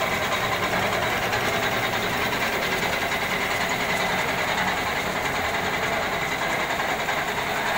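Cantilever slitting machine running steadily, its rollers and rewind shafts turning as the film web is slit and wound, a constant mechanical running noise with no change in speed.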